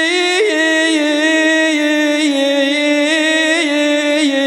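A single male radood's voice holding one long, unbroken melismatic note of a Shia elegy chant (latmiya). The pitch wavers in small ornaments, lifts briefly about half a second in and steps down near the end.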